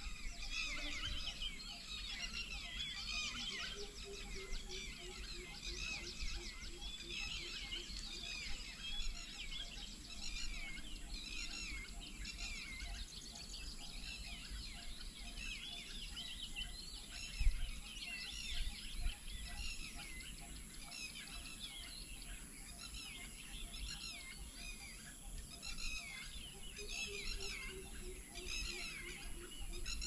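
Many small birds chirping and calling at once in a dense, continuous chorus over a low rumble. A faint low note repeats steadily underneath, and there is a single thump a little past halfway.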